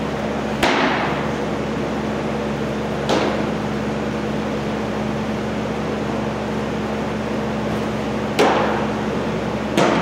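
Four sharp, echoing smacks of baseballs striking in a large indoor training hall, a few seconds apart, over a steady ventilation hum.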